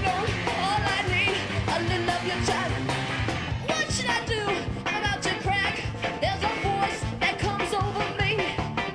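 Live ska-rock band playing: a female lead voice singing over electric guitar, bass and drums with a steady beat.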